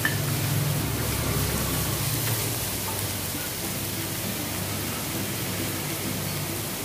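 Chopped onions sizzling steadily in hot oil in a non-stick wok as they are stirred with a wooden spatula.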